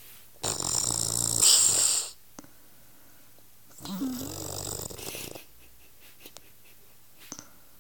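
An elderly woman snoring, an odd-sounding snore: a loud, harsh, hissing snore about half a second in that lasts about a second and a half, then a quieter snore with a wavering pitch about four seconds in.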